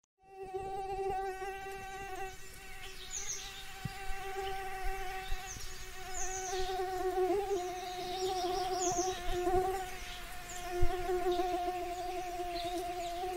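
Mosquito whine: a steady buzz that wavers slightly in pitch, with small birds chirping short high calls over it and a single soft thump about eleven seconds in.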